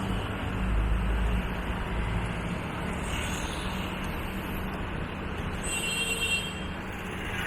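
Street traffic: a motor vehicle engine running close by, a steady low hum that is loudest in the first couple of seconds. A brief high-pitched sound comes about six seconds in.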